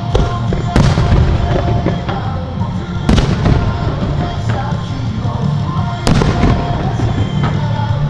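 Aerial firework shells bursting over a lake in a string of sharp bangs and rumbling booms, the loudest about one, three and six seconds in.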